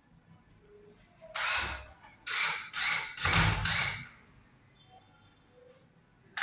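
Power drill run in about five short bursts, one after another, each a second or less.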